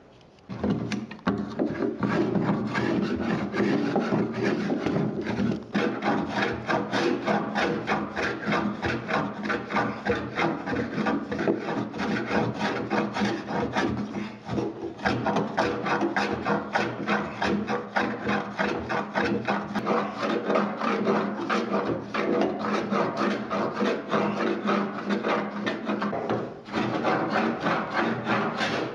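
Hand plane shaving the underside of a piano's wooden pin block in rapid, repeated short strokes, with a few brief pauses. The pin block is warped, and a section is being planed off so the hammer shanks stop hitting it.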